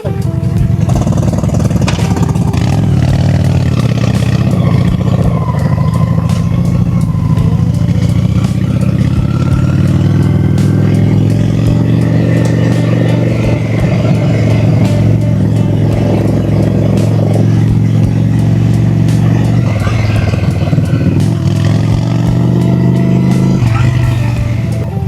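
Honda Shadow V-twin cruiser motorcycle engine running under way, loud and steady, its pitch rising and falling as the throttle and gears change.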